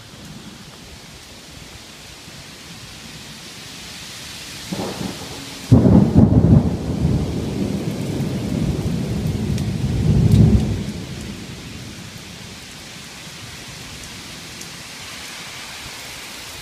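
Steady rain with a clap of thunder: a low rumble starts about five seconds in, breaks into a sudden loud crack, then rolls on, swelling again before dying away by about twelve seconds, leaving the rain.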